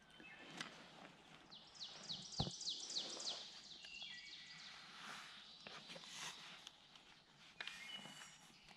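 Small songbird singing a quick run of about eight high, downward-slurred notes, with a few other short high bird notes near the start and end. Faint rustling and clicks throughout, and one soft low thump a little over two seconds in.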